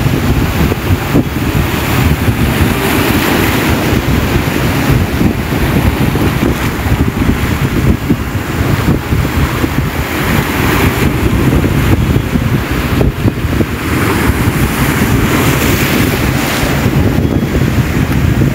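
Ocean surf breaking and churning among rocks, surging every few seconds, with wind buffeting the microphone in a steady low rumble.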